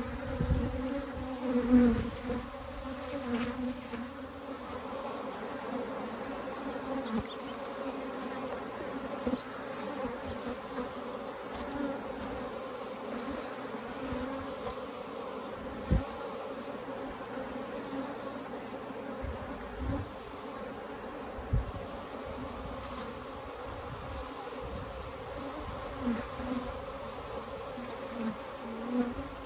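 A colony of Africanized hybrid honeybees buzzing as a steady, many-voiced hum, with a few short low thumps.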